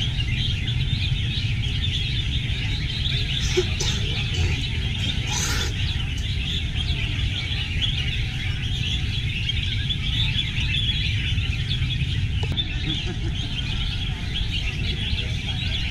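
Many caged red-whiskered bulbuls chirping and singing at once, a dense, unbroken chatter, over a low steady rumble.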